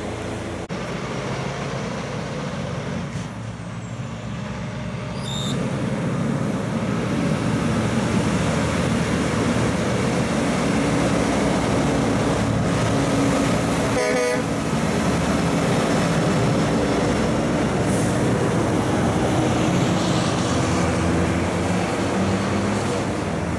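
Diesel engine and tyres of a heavy truck-and-trailer unit growing louder as it approaches and passes close by. Its horn gives one short toot about halfway through.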